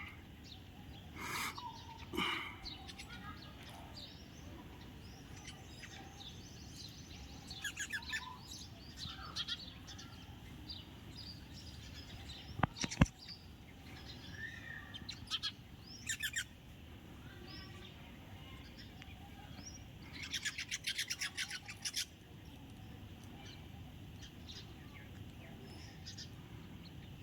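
House sparrows chirping in scattered short calls, with a fast run of chirps about three quarters of the way through. A single sharp click about halfway through is the loudest sound.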